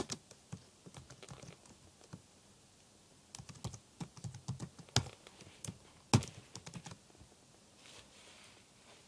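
Typing on a computer keyboard: short bursts of keystrokes with pauses between them, and one louder click about six seconds in.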